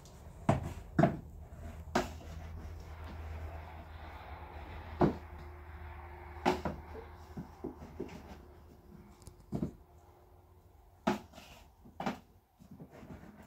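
Plastic lid and cover being handled on a plastic tub of bread dough: a series of sharp knocks and clatters of plastic on plastic, spaced irregularly a second or more apart.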